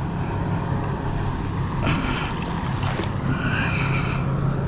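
Steady low engine drone over wind and water noise, with a few faint, brief higher sounds in the middle.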